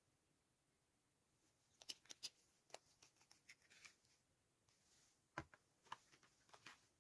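Faint handling noises: scattered light clicks and taps of plastic cosmetic tubes and caps, and a cardboard product box being picked up. The clicks begin about two seconds in, and the sharpest comes a little after five seconds.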